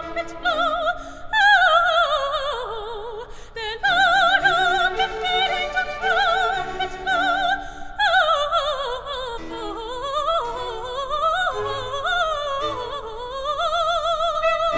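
Operatic soprano singing with wide vibrato, high held notes and two long descending runs, over soft orchestral accompaniment.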